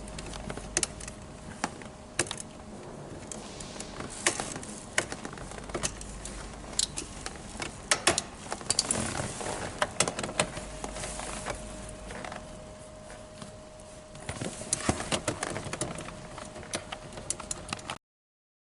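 Irregular clicks, taps and small rattles of hand tools and screws being worked on a car's interior trim panels, with a faint steady hum underneath.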